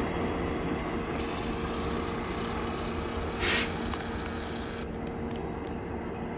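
MARC bilevel commuter train rolling past and moving away, its wheels giving a steady rumble on the rails. A short hiss cuts in about halfway through.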